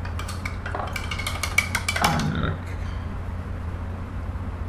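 A quick run of about a dozen light clicks and clinks, as of small hard objects tapping together, over roughly the first two and a half seconds, over a steady low hum.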